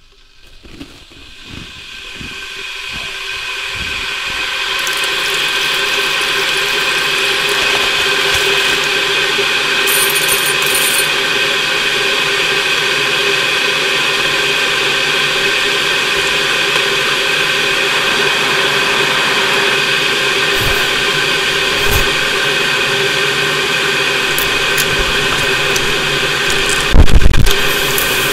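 A dense, steady, mechanical-sounding drone with several held tones, swelling in over the first few seconds and then holding level, with a few sharp clicks and a brief loud burst about a second before the end.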